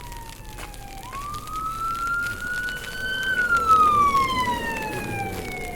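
Police car siren wailing: it rises slowly for about two seconds from a second in, falls more slowly through the rest, and starts to climb again at the very end.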